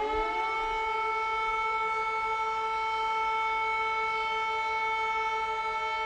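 Air raid siren sounding: its pitch finishes rising in the first second, then holds one steady tone, with a second, fainter tone joining near the end.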